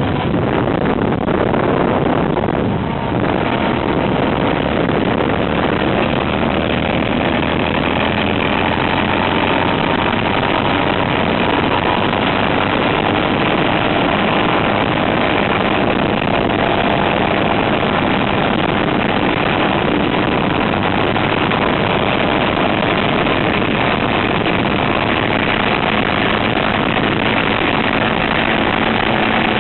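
Yamaha YFM700R Raptor quad's single-cylinder four-stroke engine running steadily, making noises its owner finds strange, a sign of a suspected engine fault.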